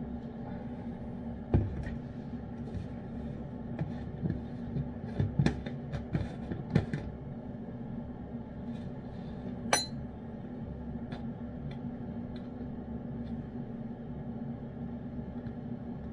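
Kitchenware being handled: a few knocks and clinks, the loudest a thud about one and a half seconds in and a ringing clink near ten seconds in, over a steady low hum.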